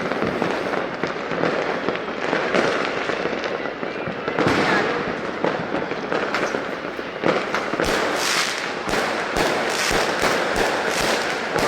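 Fireworks going off continuously, a dense crackle of many small bangs. Sharper, louder pops come thicker from about eight seconds in.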